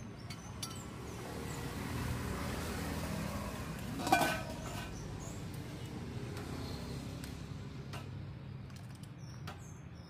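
Enamel pot, lid and ladle clinking while hot mung bean porridge is dished out, with one sharp ringing metal clank about four seconds in. Steady street background noise runs underneath.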